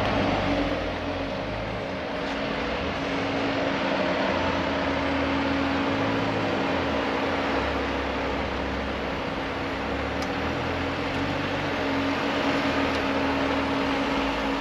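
Jeep Wrangler Rubicon's engine running steadily with a constant hum as the Jeep crawls slowly up a sandstone rock ledge, over a wash of steady noise.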